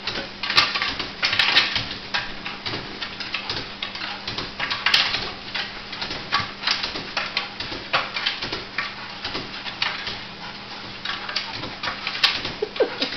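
Jack Russell terrier jumping over and over at a kitchen counter: rapid clicking and scraping of its claws and paws on the tile floor and against the dishwasher and cabinet fronts.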